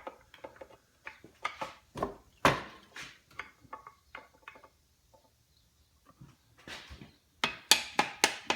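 Mallet tapping a wooden dowel to drive a locking lever out of an Atlas 73 drill press's head casting: scattered light knocks, a brief pause, then a quicker run of harder knocks near the end as the lever comes free.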